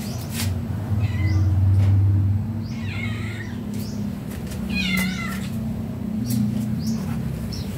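Domestic cat meowing twice, high-pitched and wavering, about three and five seconds in, with a few shorter high calls around them. Under it runs a steady low hum that swells briefly near the start, with scattered light clicks.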